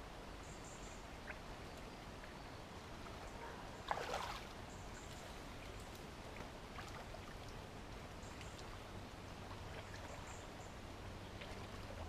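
Faint splashing and knocking of branches and debris as a blockage is pulled apart by hand in a shallow brook, with one louder splash about four seconds in, over a steady low hiss of water.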